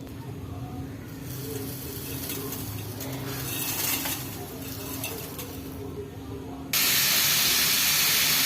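Stovetop cooking: a low steady hum with faint sizzling, then about seven seconds in a loud, even hiss starts abruptly and holds steady.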